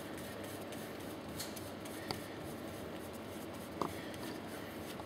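Gloved hands unwinding a Track C1 piston pump's plunger assembly by hand: faint rubbing and handling over a steady hiss, with two light clicks, about two seconds in and again near four seconds.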